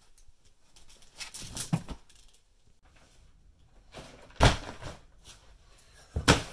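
Handling noises: clothes hangers rustling and clicking on a closet rod about a second in, then a loud thump about four and a half seconds in and a sharper knock near the end as a person settles onto a leather couch and sets down a cardboard box.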